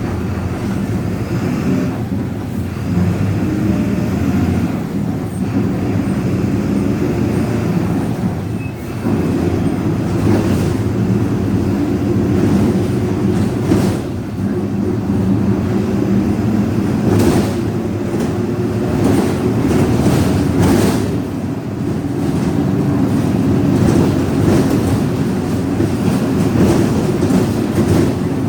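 VW 17.230 EOD bus under way: its differential growls steadily over the drone of the MWM 6.12 TCE 7.2-litre turbodiesel. Sharp knocks and rattles come through, most of them about two-thirds of the way in.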